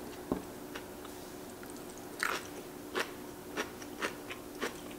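Close-miked chewing of crisp kimchi: separate short crunches every half second to a second. One knock comes near the start.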